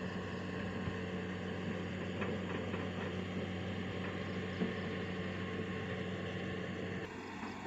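Excavator's engine running steadily as the machine crawls slowly, a low even hum that eases off a little near the end.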